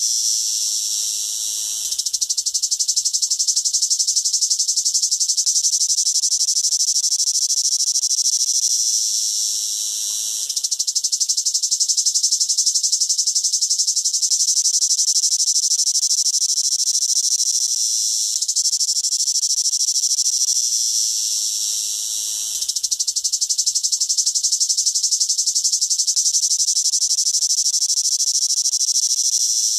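Cicada singing: a loud, high, rapidly pulsing buzz that eases off briefly a few times and then builds straight back up.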